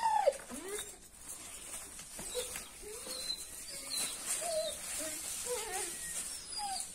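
A dog whining in short, rising-and-falling whimpers, repeated several times, the loudest right at the start.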